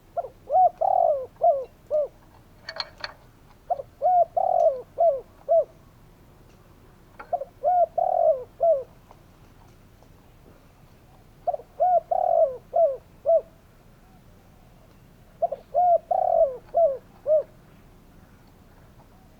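Spotted dove calling: five phrases of four to six quick coos each, every phrase about two seconds long, with pauses of a couple of seconds between them.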